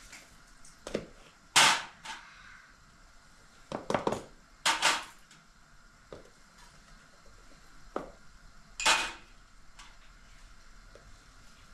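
Kitchenware clinking and knocking: a small glass and spoon tapped against a plastic mixing bowl and set down on the counter while ingredients are poured in. About seven separate knocks with quiet between, the loudest three spaced a few seconds apart.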